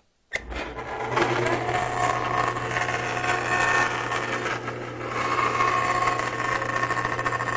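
Bandsaw running steadily, its blade cutting into a sheet of dry erase board. The sound comes up about a second in, with a steady hum under the cutting noise, and eases briefly near the middle.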